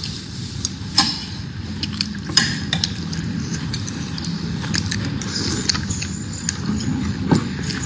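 Metal spoon and fork clinking and scraping against a ceramic plate during a meal: scattered sharp clinks, the strongest about a second in, around two and a half seconds and near the end, over a steady low background noise.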